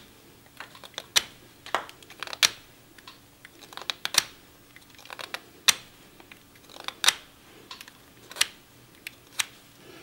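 Pocketknife blade cutting chips from a bark-covered linden twig: short, crisp clicks and snaps, irregularly spaced about one a second, some in quick pairs.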